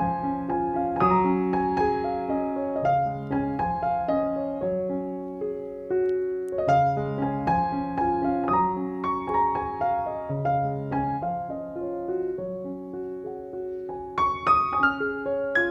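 Background music: a gentle solo piano melody with sustained notes.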